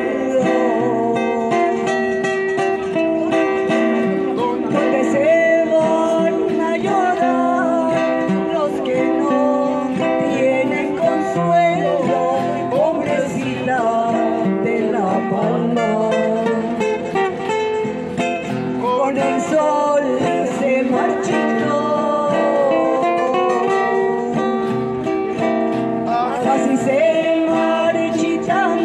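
A woman singing with two acoustic guitars playing along.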